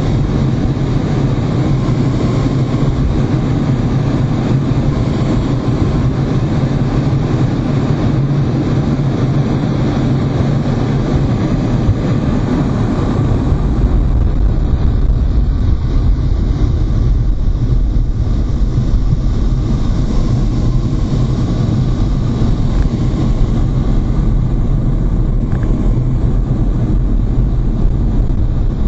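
Steady in-flight cockpit noise of a MiG-29 fighter, a loud rumble from its twin jet engines and airflow. About halfway through, the deep rumble grows heavier.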